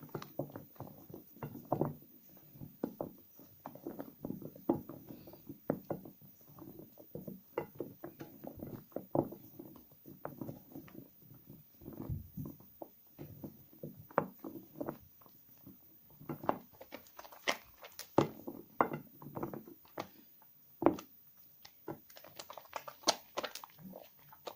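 Soaked soap scraps being squeezed and lathered by hand: an irregular run of soft wet squelches and squishes, with some sharper crackling clicks near the end.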